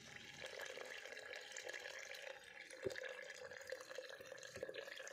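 A thin stream of tap water running from a water container's spout into a plastic jug of washed rice, splashing steadily into the water already in it. This is the fresh rinse water being added to the rice. A couple of light knocks come about three and four and a half seconds in.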